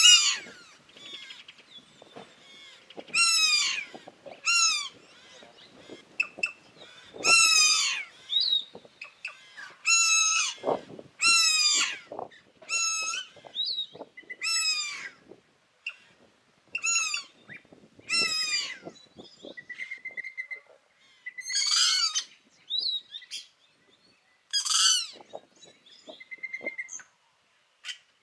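Yellow-rumped cacique singing: a long run of separate loud calls, mostly sweeping down in pitch with rich overtones, mixed with short rapid trills and scattered clicks.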